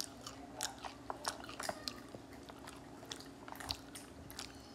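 A cat chewing a crunchy tortilla chip: irregular crisp crunches, a few each second.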